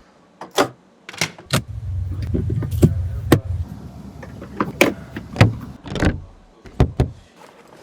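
Work sounds on a car under repair: a string of sharp clicks and knocks, with a low motor-like hum that runs for about two seconds near the start.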